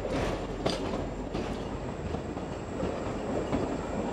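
Train running along the track: a steady rumble of wheels on rails, with clicks recurring at fairly even spacing as the wheels pass over the rail joints.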